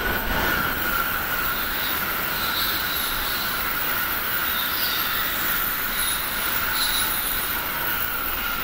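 N700-series Shinkansen train passing at speed: a steady rush of wheel and air noise with a high, steady whine running through it.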